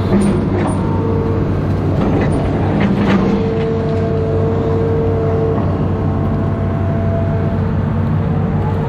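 Amphibious excavator's diesel engine running steadily under load, with a high whine that comes and goes. There are a few short knocks near the start and around three seconds in.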